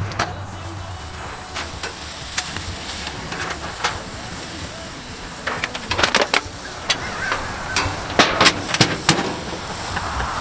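Scattered sharp knocks and clicks over a steady hiss, most of them bunched in the second half.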